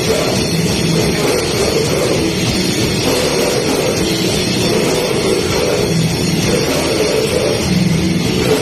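A death metal band playing loud and without a break: heavily distorted guitars over bass and drums.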